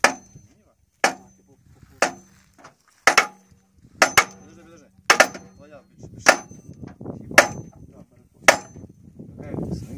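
Hammer blows on a cover of an SMD-62 diesel engine, about one a second with a few quick double hits, each leaving a short metallic ring: the cover is being knocked loose during disassembly.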